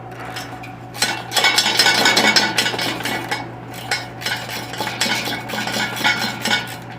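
Metal tools and loose parts clinking and rattling against each other in a busy, irregular clatter that starts about a second in and eases off near the end, over a steady low hum.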